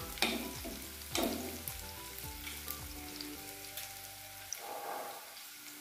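Sliced onion sizzling steadily in hot oil in a kadhai, being sautéed just until its rawness goes. A steel ladle scrapes through it a couple of times in the first second or so.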